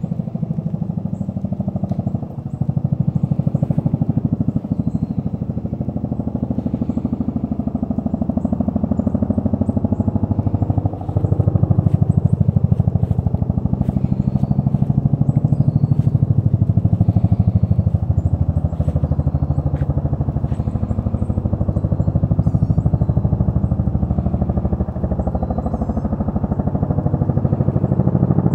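Bell UH-1 Huey helicopter's two-blade main rotor beating steadily in a fast, low pulse, growing a little louder about eleven seconds in.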